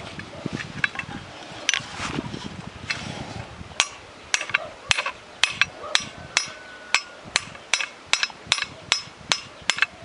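Hammer blows driving a part home into the fan's worn bearing seat on a walk-behind tractor. Sharp metallic taps, scattered at first, then a steady run of two to three blows a second from about four seconds in.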